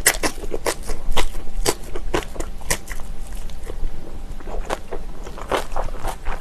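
Close-miked chewing of crunchy kimchi: a run of sharp, irregular crunches, two or three a second.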